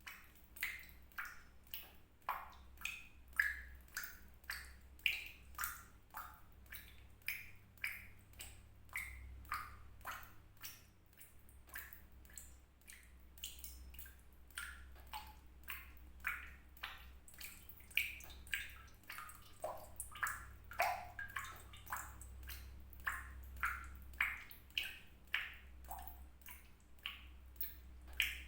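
Water drops falling into water in quick succession, about two or three a second, each a short pitched plink, the pitch varying from drop to drop. A steady low hum runs underneath.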